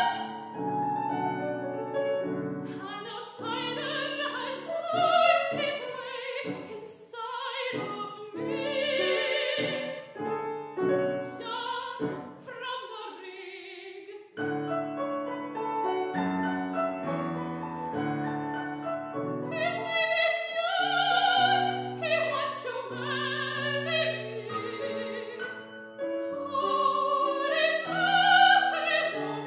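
Operatic soprano singing an aria with vibrato, accompanied by a Steinway grand piano. The voice drops out briefly about halfway through while the piano carries on.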